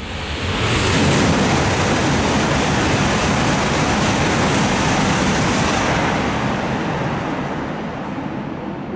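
E5/E6 coupled Shinkansen train passing through a station at high speed without stopping: a loud rush of air and running noise. It swells within about a second of the start, holds steady for several seconds, then fades as the train clears the platform.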